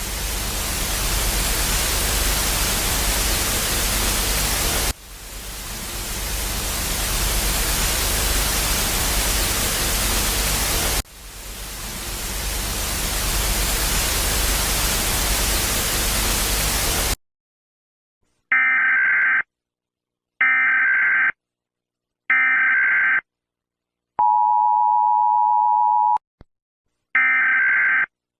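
Loud white-noise static in three stretches, each swelling in, cutting off at about 17 seconds. Then comes an Emergency Alert System broadcast signal: three one-second bursts of warbling digital SAME data tones, a two-second two-tone EAS attention signal, and one more data burst as the end-of-message code begins.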